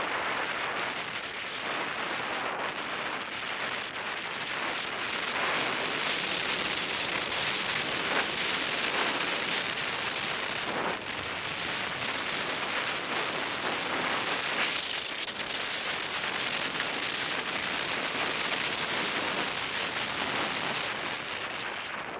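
Skis sliding fast through loose powder and cut-up snow, a steady hiss that swells and eases with the turns.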